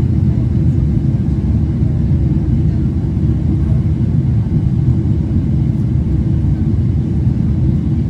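Steady low rumble of an airliner's cabin in flight: engine and airflow noise heard from a window seat, unchanging throughout.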